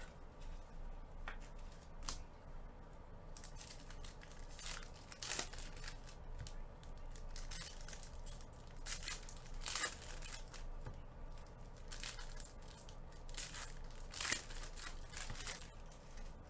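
Foil trading-card pack wrappers being torn open and crinkled by hand, in a series of short, irregular rustling bursts.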